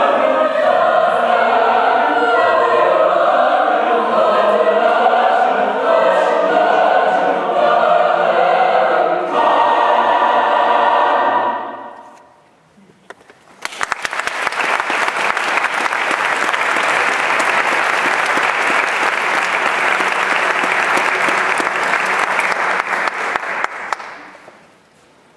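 Mixed choir singing and ending on a held chord that dies away about twelve seconds in. After a brief pause, audience applause starts and runs for about ten seconds before fading out.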